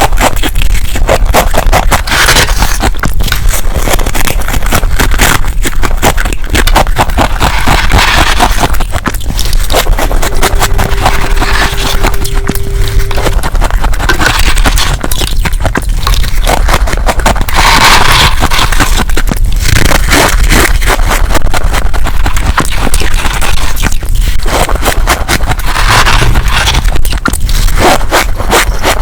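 Freezer frost being scraped and crunched while it is eaten: a loud, continuous, irregular crackling of ice. A steady hum runs for about three seconds near the middle.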